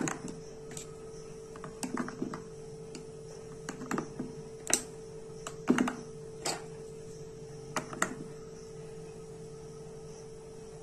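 Plastic lids with built-in sticks being pressed onto the cups of a plastic ice-lolly mould: about ten light, irregular plastic clicks and taps, over a steady low hum.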